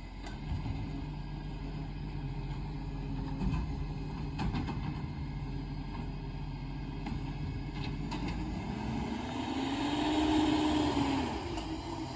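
Iveco garbage truck's diesel engine running as the truck approaches slowly. About nine seconds in, the engine note grows louder, rises and falls back over a couple of seconds.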